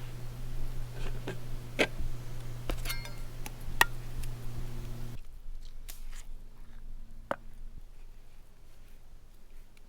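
Scattered knife clicks and taps on a cutting board as vegetables are cut up, over a low steady hum that drops away about halfway through.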